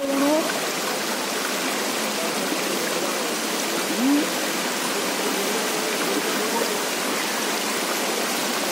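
Steady rush of floodwater running down a village street, with a short faint rising tone about four seconds in.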